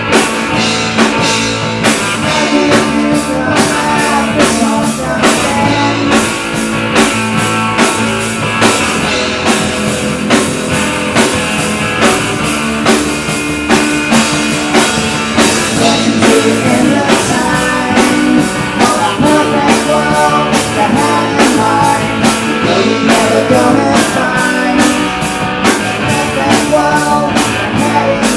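Live rock band playing loud: drum kit keeping a fast steady beat under electric guitar and bass guitar.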